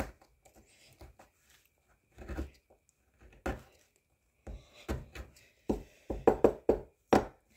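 Small plastic digging pick scratching and picking at a plaster dig-kit block, in short irregular strokes that come quicker near the end.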